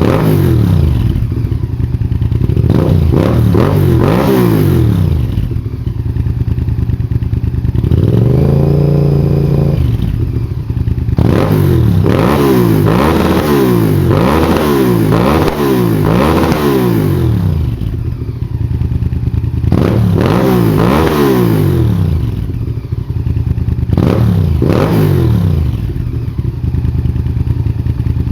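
Honda VTR1000F FireStorm's 90-degree V-twin, through a Leo Vince exhaust with the dB killer removed, revved again and again in quick throttle blips and dropping back to idle between them. There is one longer held rev about eight seconds in and a fast run of blips in the middle.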